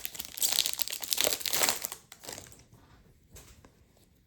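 Trading-card pack wrapper crinkling loudly for about two seconds as it is handled, then dying down to faint rustles of card handling.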